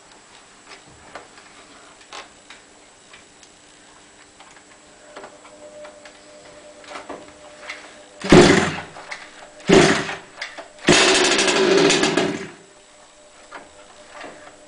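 HPI Baja 5B's small two-stroke petrol engine being pull-started: two short tugs on the recoil starter about eight and nine and a half seconds in, then the engine fires and runs for about a second and a half before dying. Before that there are only faint clicks of handling.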